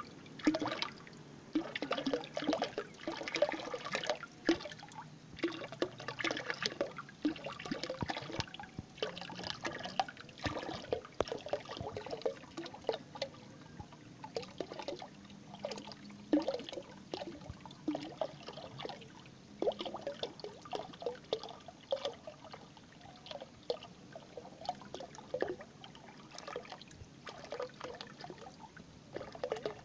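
A thin stream of water pouring into a container of water, splashing and bubbling in quick, irregular plops. It is busiest in the first dozen seconds and a little quieter after.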